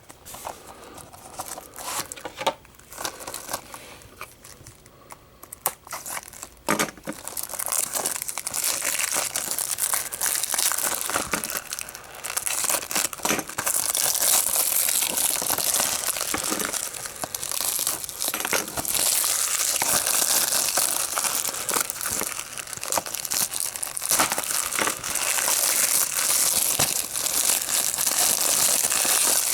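Plastic shrink-wrap being torn off a Blu-ray case and crumpled: scattered crackles and clicks at first, then from about seven seconds in a continuous crinkling that grows louder.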